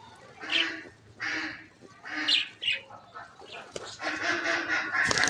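Ducks quacking in a few short, loud calls during the first three seconds. Near the end comes a flurry of pigeon wings flapping.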